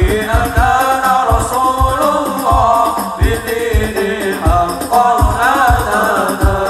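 Hadroh ensemble performing sholawat: male voices singing a melodic line over a steady beat of deep frame-drum and bass-drum strikes.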